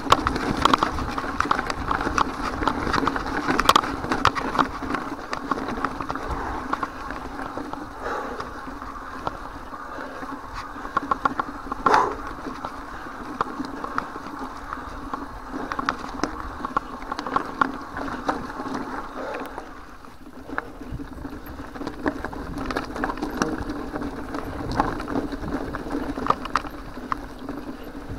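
Mountain bike rolling over a rough, loose gravel track: tyres crunching on stones and the bike rattling with many small knocks, over a steady buzzing hum. One louder knock comes about twelve seconds in.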